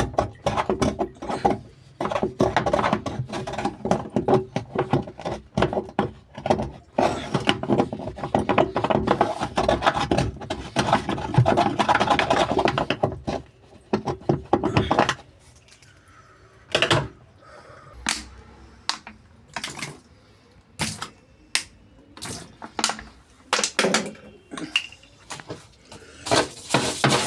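Clatter and knocking from handling the plastic parts of a washing machine during cleaning: dense and busy for about the first fifteen seconds, then scattered single sharp knocks.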